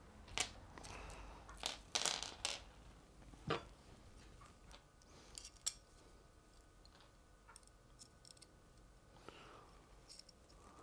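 Small metal parts, T-nuts for a 3D printer's filament holder, handled by hand: a few scattered clicks, clinks and light knocks in the first six seconds or so, then only faint ticks.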